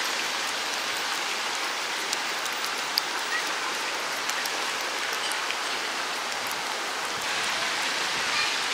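A cat licking a lickable treat from a squeeze tube, a few faint small clicks over a steady hiss like rain or rushing water.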